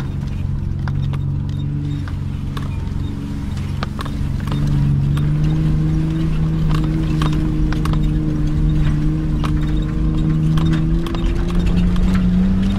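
Interior sound of a 4x4's engine running as it drives a rough dirt track. The engine note steps up about four and a half seconds in and again near the end, with frequent short knocks and rattles in the cabin.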